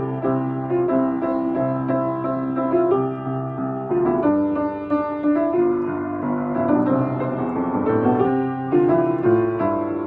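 Background music: a gentle piano melody over held bass notes.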